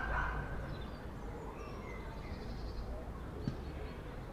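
A loud animal call cuts off just after the start, followed by faint high chirps and one light click over a steady low outdoor rumble.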